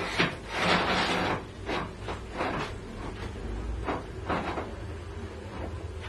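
Metal tubing being handled and shifted, a string of scrapes and knocks, the longest scrape near the start, over a steady low hum.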